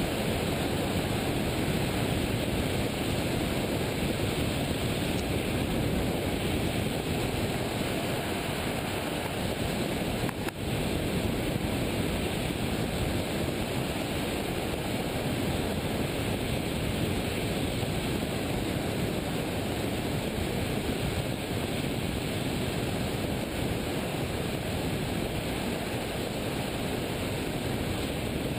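Steady rush of wind on the microphone of a hang glider in flight, airflow noise with no engine, dipping briefly about ten seconds in.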